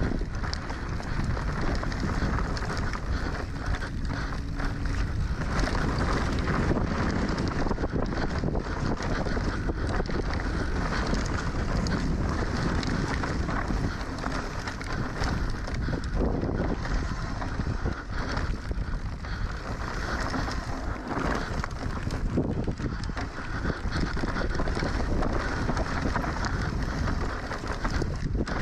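Wind rushing over an action camera's microphone during a mountain-bike descent, with the bike rattling and knocking over rough trail in a constant run of clicks.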